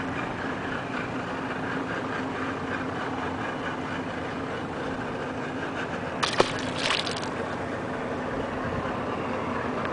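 A released chain pickerel splashing into the water about six seconds in: a sharp slap followed by a brief rush of spray. Under it runs a steady, engine-like hum.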